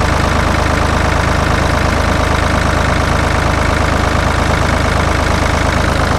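Ford 4000 tractor engine running steadily at idle.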